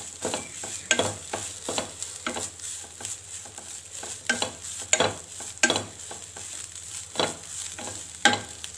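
Wooden spatula stirring grated coconut frying in ghee in a pan: a string of irregular scrapes and knocks of the spatula against the pan over a steady sizzle.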